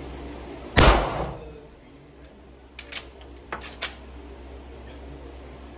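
A single handgun shot about a second in, echoing off the walls of an indoor range and dying away over about a second. It is followed by a few much quieter sharp clicks.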